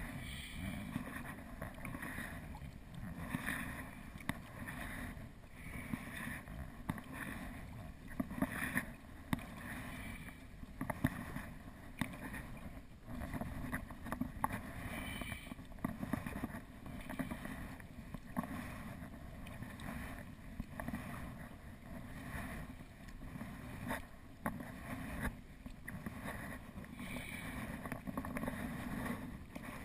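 Sea kayak being paddled on calm water: the paddle blades dip and splash on alternate sides about every second and a half, with water running off the blades and a few sharp clicks.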